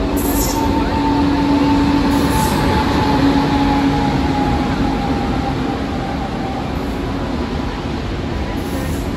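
Indian Railways WAP-7 electric locomotive hauling a passenger train past at low speed. Wheels and running gear rumble steadily on the rails, under a faint whine from the locomotive that slowly falls in pitch.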